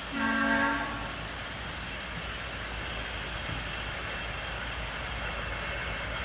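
Miniature ride-on railroad locomotive sounding one short two-note horn blast in the first second, then the steady running noise of the train approaching on the track.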